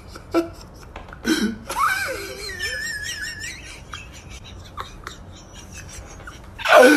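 A person giggling and laughing in short bursts, with a louder burst of laughter near the end.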